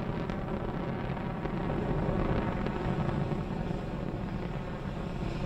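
Steady low rumble of a Soyuz-2.1a rocket's engines as it climbs away during ascent, swelling slightly two or three seconds in.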